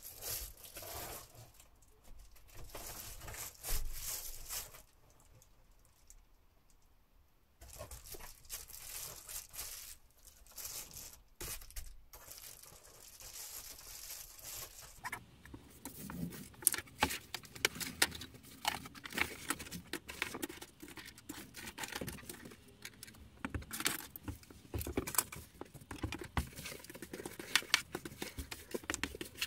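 Reflective bubble-foil insulation sheet crinkling and rustling as it is handled and pressed against a window. It goes quieter for a couple of seconds about five seconds in, and the second half has sharper crackles and taps.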